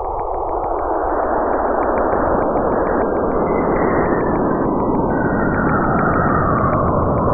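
Cassini's radio recording of plasma waves moving between Saturn and its moon Enceladus, converted into sound: a dense rushing hiss with a whistling tone that glides downward in the second half.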